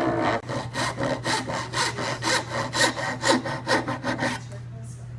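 Hand saw cutting wood in quick, even back-and-forth strokes, about four a second, as a tenon is cut by hand; the sawing stops about four seconds in.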